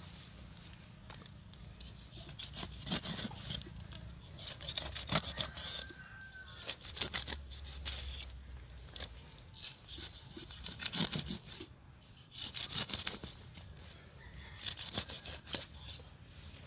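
Cleaver scoring slits through the scaled skin of a Java barb on a plastic cutting board: clusters of short, sharp cutting strokes and knocks on the board, coming every second or two.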